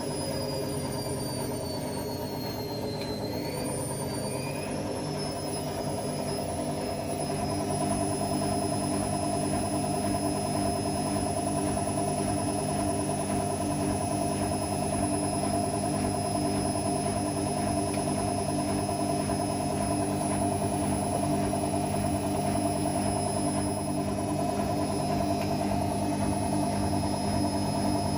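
Whirlpool AWM 864 Aquaprogramm washing machine running, a steady motor-and-drum hum with a whine, stepping up in loudness about seven seconds in.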